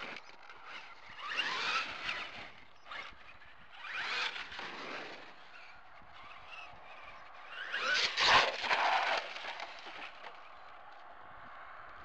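Traxxas E-Maxx RC truck's brushless motor whining in three throttle bursts that rise and fall in pitch, with tyre noise on the wet road. The burst about eight seconds in is the loudest.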